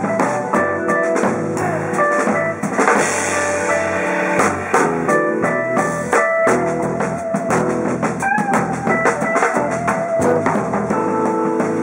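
Jazz-fusion band playing live: guitar runs quick single-note lines over a busy drum kit, with bass underneath.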